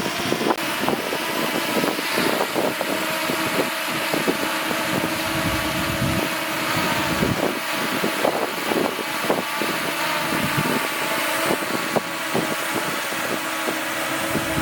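Heavy diesel earthmoving machinery running steadily, with frequent clanks and knocks of metal and stone over the engine.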